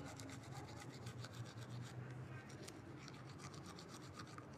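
Faint scratchy rubbing with an irregular patter of small clicks over a low steady hum, like handling noise on the phone's microphone.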